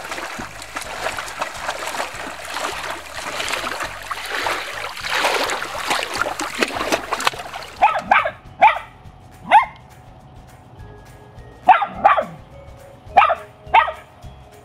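Rushing, splashing noise of shallow water. About eight seconds in, a small dog barks sharply about eight times in short clusters.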